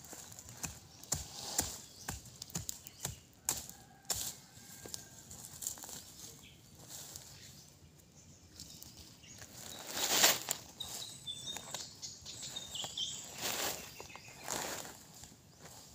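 Dry grass and leaves rustling and crackling as they are pulled and handled by hand, in a string of short scrapes, with a longer, louder rustle about ten seconds in.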